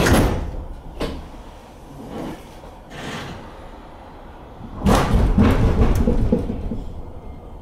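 The sliding doors of a 209-series commuter train closing at the platform. There is a sharp click about a second in, then a louder thump and a hiss about five seconds in that fades over a second or so.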